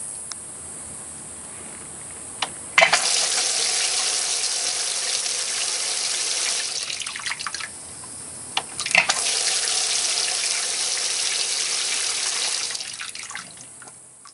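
Water spraying and splashing into a Scout bay boat's fiberglass livewell as it fills. The flow comes on sharply about three seconds in, just after a couple of clicks. It drops away briefly around the middle, comes back after two more clicks, and fades near the end.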